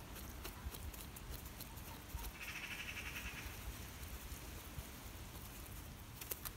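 A duck gives a short, high trilling call of about a second, around two and a half seconds in. A few soft clicks come near the start and again near the end.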